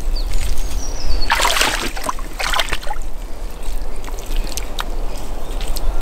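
Shallow muddy stream water sloshing and splashing as it is stirred by wellington boots and hands, with two louder splashes about a second and two and a half seconds in.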